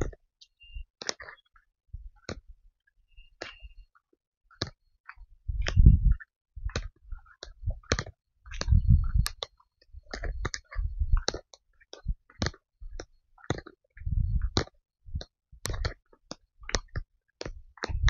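Footsteps walking on a dirt forest trail: irregular short clicks and scuffs, about one or two a second, some landing as heavier low thuds.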